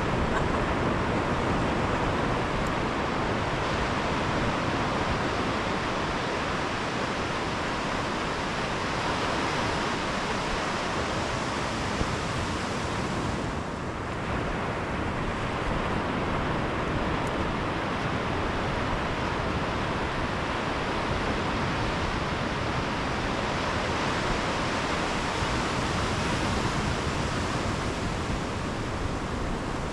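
Steady wash of surf breaking on a sandy beach, with wind.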